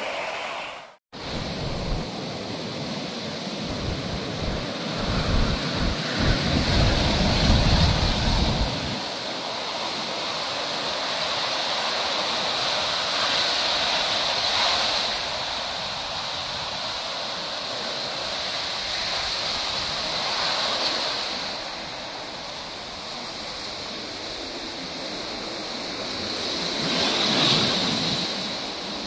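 Sea surf washing onto a beach, a steady hiss that swells as waves break about every six or seven seconds. Wind buffets the microphone with a heavy rumble from a couple of seconds in for about seven seconds.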